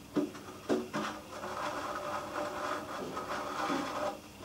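3D-printed plastic jet pump housing pushed into the cut in a carbon-fibre RC boat hull: two knocks in the first second, then a steady scraping rub as it is worked into place.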